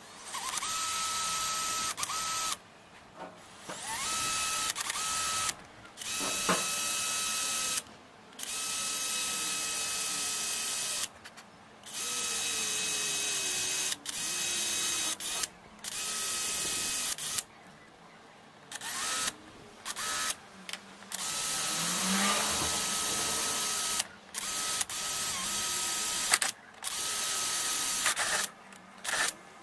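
Cordless 18-volt drill running in about ten separate bursts of one to four seconds, with short pauses between, each burst a steady whine, as it drills holes through a new number plate to mount it on a scooter.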